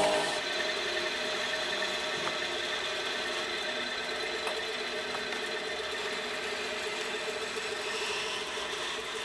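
A small motor running with a steady hum.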